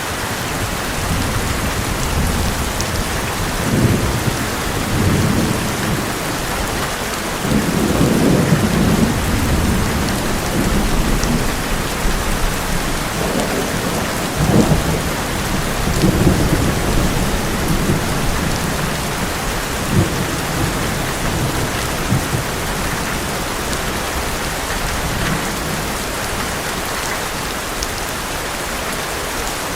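Heavy rain pattering steadily on an old metal roof. Rolling thunder rumbles repeatedly through the middle, loudest about a third and halfway in, then dies away, leaving the rain alone near the end.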